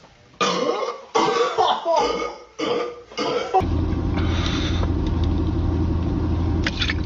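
A person burping after gulping Sprite: about five short burps in quick succession. From about halfway through, a steady low drone takes over.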